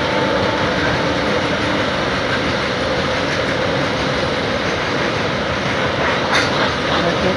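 A goods train's covered wagons passing close by at speed through the station, with a steady noise of steel wheels on the rails. A single sharp knock comes about six seconds in.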